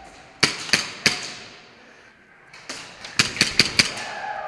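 Airsoft guns firing single shots as sharp cracks, three about half a second apart early on, then after a short lull a quick run of about six shots near the end.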